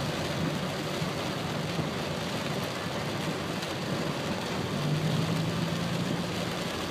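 Car engine running with a steady low hum, heard from inside the car over a steady hiss of heavy rain on the wet street. The hum grows a little louder about five seconds in.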